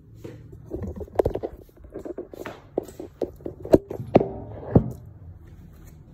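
Handling noise from the recording phone as it is picked up, carried and set down near the floor: a run of uneven taps and knocks, the three sharpest in the second half.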